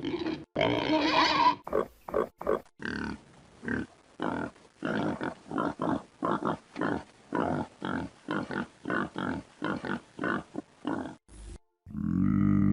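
Domestic pig grunting: a longer, higher call about a second in, then a steady run of short grunts at about two a second. Just before the end a different, steady sound comes in.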